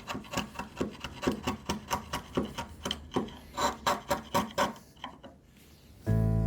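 Sharp bench chisel paring wood from a rebate cheek, pushed by hand, in quick short scraping strokes about three a second that die away about five seconds in. Acoustic guitar music comes in near the end.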